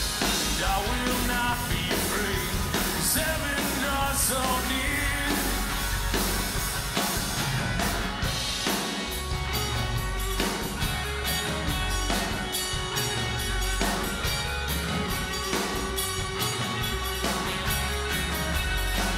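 Live rock band playing an instrumental passage: electric guitar lines over electric bass, strummed acoustic guitar and a drum kit keeping a steady beat.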